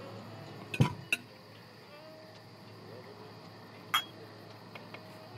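Glassware and dishes clinking and knocking at a dinner table: two sharp knocks close together about a second in, then a single ringing glass clink about four seconds in. A faint steady hum runs underneath.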